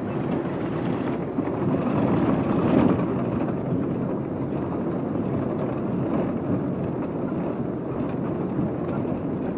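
Blizzard wind blowing across the microphone: a steady rushing noise that swells to its loudest about three seconds in.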